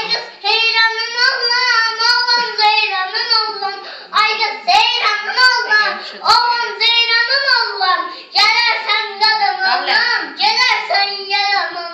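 A four-year-old girl singing unaccompanied in a high child's voice, phrase after phrase, with short breaks about four and eight seconds in.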